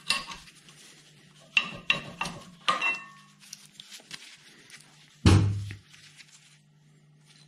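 Screwdriver levering worn brake pads out of a rear disc-brake caliper carrier: a few sharp metal clinks and scrapes, some with a short ring, then one heavy thud about five seconds in.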